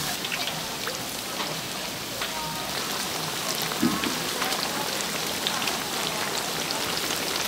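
Hot oil in a deep fryer sizzling, with a steady scatter of small crackling pops, as handmade Korean fried snacks (twigim) cook in it.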